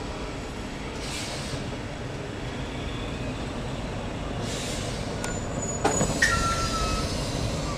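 A TER Languedoc-Roussillon electric multiple unit stands at the platform with its onboard equipment running in a steady drone. About six seconds in comes a sharp clunk, followed by a short high steady tone.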